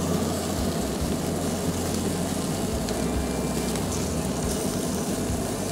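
Traeger pellet grill running with its lid open: a steady low hum with a hiss over it as chicken drumsticks sizzle on the grate.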